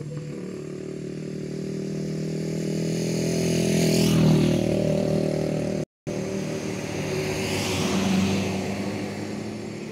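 Motor vehicle engines running close by. One vehicle passes about four seconds in and a second about eight seconds in, each swelling and then fading. The sound cuts out for a moment just before six seconds.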